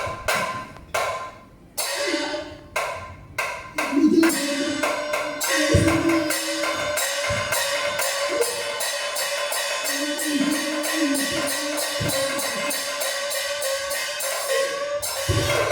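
Live Chinese opera percussion accompaniment: a few sharp, spaced strikes, then from about four seconds in a fast, even run of strikes with a held tone sounding over it, stopping abruptly near the end.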